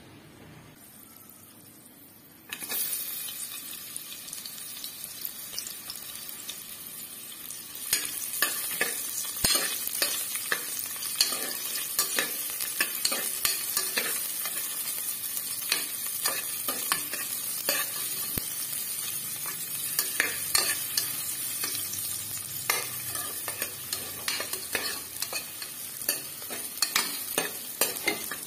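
Food sizzling as it fries in a pan, starting suddenly about two and a half seconds in. From about eight seconds in, a spoon stirring it and knocking repeatedly against the pan.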